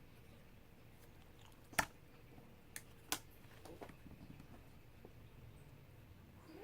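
Slime being handled and squeezed: quiet squishing with three sharp pops, the loudest a little under two seconds in and two more about a second later.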